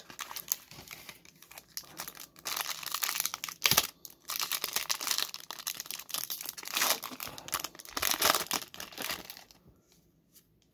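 Foil wrapper of a Pokémon booster pack crinkling and tearing as it is ripped open and handled, with a sharp snap about four seconds in. It falls quiet near the end.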